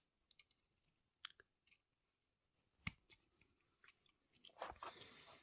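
Faint clicks and taps of small plastic and metal parts being handled as a replacement bumper is fitted to a 1:64 diecast Land Rover model. There is one sharper click about three seconds in and a cluster of scraping clicks near the end.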